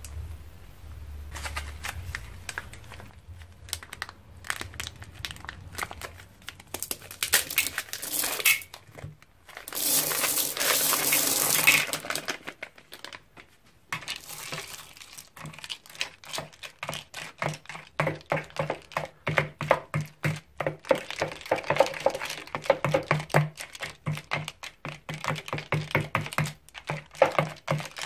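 A handful of small plastic beads (letter cubes and round beads) poured into a bowl of wet glue makes a dense rattling hiss for a couple of seconds near the middle. Then a plastic spatula stirs the beaded slime in quick, uneven strokes, the beads clicking against each other and the bowl as the slime squelches.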